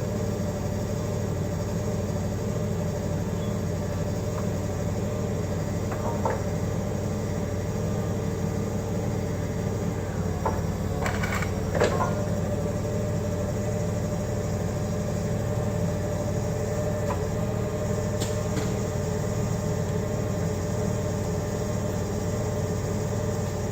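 Forklift engine running steadily, with a few short metal clunks and knocks, the loudest about halfway through, as the mast is lowered and the forklift moves up to the fork.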